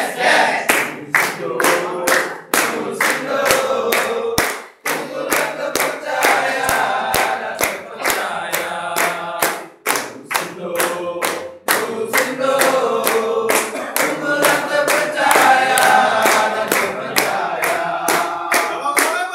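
A group of men and women singing a company jingle together, clapping along in a steady beat of about two to three claps a second.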